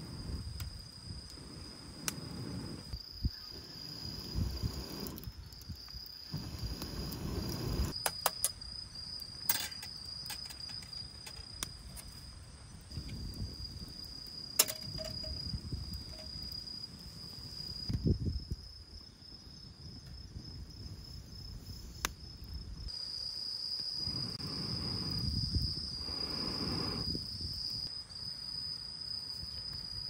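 A high-pitched insect trill, probably crickets, runs unbroken throughout. Under it come intermittent low rumbling swells and a few sharp clicks.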